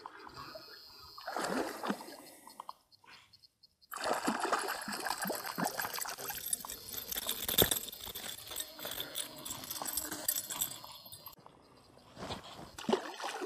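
A hooked fish splashing and thrashing at the lake surface as it is reeled in on a spinning rod, heard close to the water, with a run of sharp splashes and clicks.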